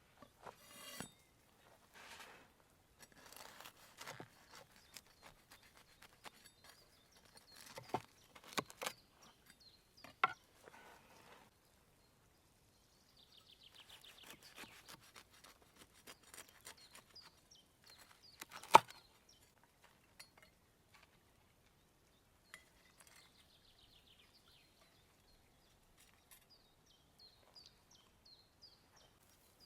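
Intermittent clicks, taps and rustles of utensils and food being handled, with one sharp click a little past the middle. A bird chirps repeatedly near the end.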